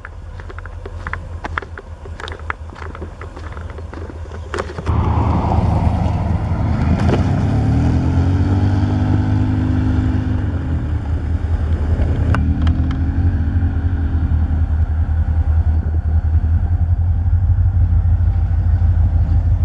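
EMD SD40-2 diesel locomotive's two-stroke V16 engine rumbling as it approaches; the rumble grows suddenly louder about a quarter of the way in. Its air horn sounds twice for the grade crossing: one long blast, then a shorter one soon after.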